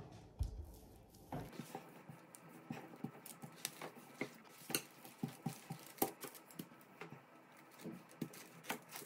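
Wooden rolling pin rolling out shortcrust dough on baking paper: faint, irregular light clicks and taps as the pin works back and forth.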